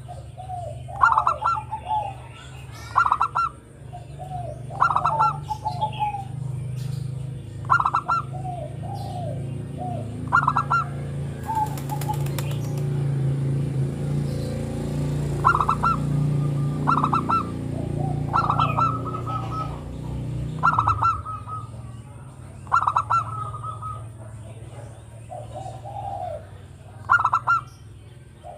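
Zebra dove (perkutut, Geopelia striata) singing: short staccato cooing phrases repeated every second or two. A steady low hum runs underneath through the middle and stops about three-quarters of the way in.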